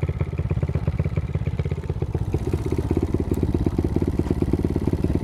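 Honda Monkey 110's single-cylinder four-stroke engine running steadily at low revs, a fast even pulsing that holds through, with a faint tick about three seconds in.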